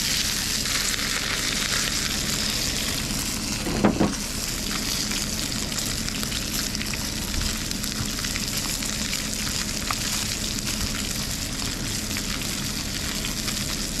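Trout sizzling in hot vegetable oil in a nonstick frying pan over a propane camp stove: a steady frying hiss, with one knock about four seconds in.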